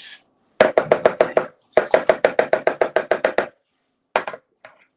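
Metal spoon beating cookie dough in a mixing bowl: quick rhythmic knocks at about eight a second in two runs with a short break, then a couple of single knocks near the end.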